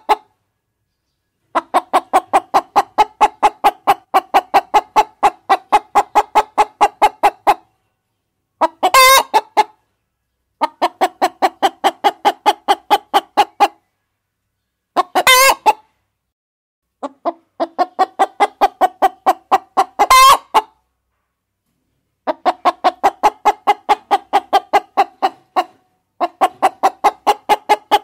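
Hens clucking in long runs of rapid, evenly paced clucks, about four a second, broken every several seconds by a short, loud squawk. The groups are separated by dead-silent gaps.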